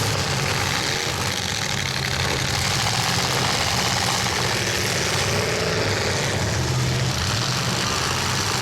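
Demolition derby truck engines running steadily, a continuous low engine sound with no sharp crashes standing out.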